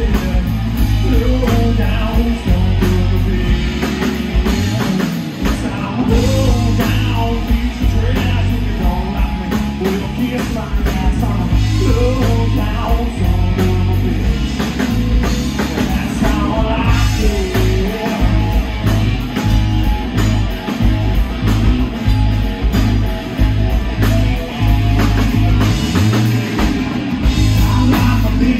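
Live rock band playing a song: a man singing into the microphone over strummed acoustic guitar, electric guitar, bass guitar and a drum kit, loud and steady throughout.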